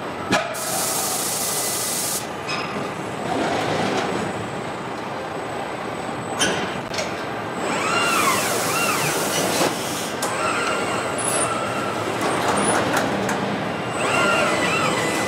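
Robotic car-body welding cell at work: industrial robot servo motors whining up and down in pitch, two long pneumatic air hisses (one about half a second in, another about eight seconds in), and scattered clanks and clicks of clamps and welding guns over a steady machine noise.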